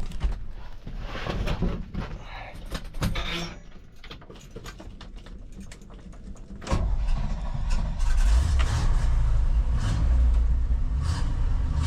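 Clicks and rustling, then about seven seconds in a truck engine starts and keeps running with a low rumble.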